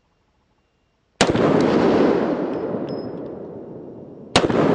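Two shots from a Detonics Pocket 9, a compact straight-blowback 9mm pistol: the first about a second in, the second about three seconds later. Each shot trails off in a long echo.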